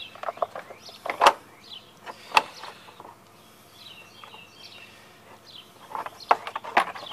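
Hand handling of a plastic air filter cover and its twist-lock knob on a lawn tractor engine: a few sharp plastic clicks and knocks, the two loudest about a second and two seconds in, with a cluster of smaller clicks near the end. Faint bird chirps sound in between.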